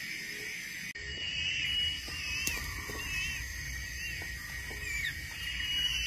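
Short whistled bird calls, repeated many times and bending up and down in pitch, over a steady high insect drone. A low rumble comes in about a second in.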